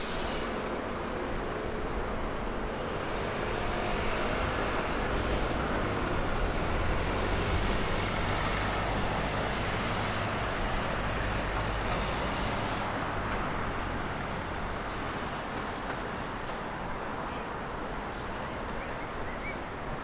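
Steady city road traffic noise. A double-decker bus's engine rumbles past close by and swells louder through the middle.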